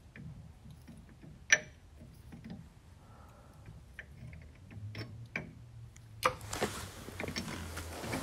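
Scattered metal clicks and taps as a lathe chuck's jaws are adjusted and tightened with a chuck key, with one sharp click about a second and a half in. Over the last two seconds a steady low hum and a rushing noise come in.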